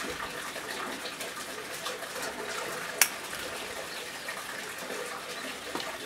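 Steady running water, an even splashing hiss, with one sharp click about three seconds in.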